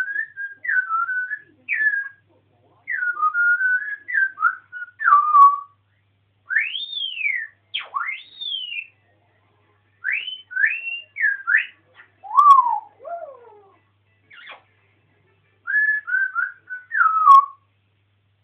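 African grey parrot whistling: a run of short whistled phrases with quick pitch slides, some sweeping high and back down, broken by brief pauses.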